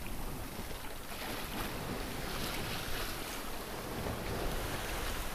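Wind and sea aboard a sailboat under way offshore. A steady low rush of wind on the microphone runs under water swishing past, which swells up a few times.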